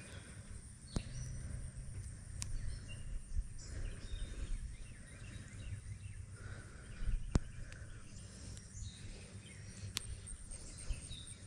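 Quiet outdoor ambience: insects and birds chirping over a low rumble, with four sharp clicks spread through it.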